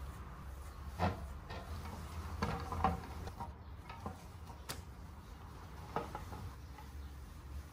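A cloth rubbing over marble-effect tabletops as they are wiped clean, with a few light knocks of the small tables being touched.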